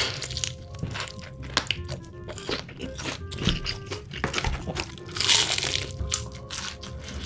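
Crunchy bites of sweet fried chicken being eaten close to the microphone, with a loud crunch about five seconds in, over background music with a light melody.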